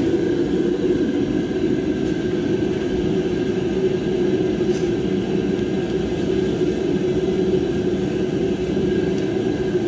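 A steady mechanical drone with a faint high-pitched whine, unchanged throughout.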